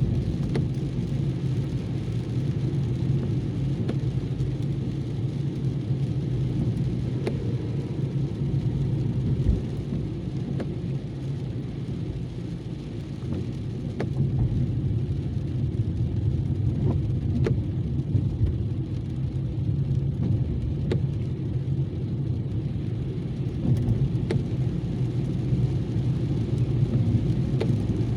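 A car driving, heard from inside: a steady low rumble of road and engine noise, with scattered faint sharp ticks now and then.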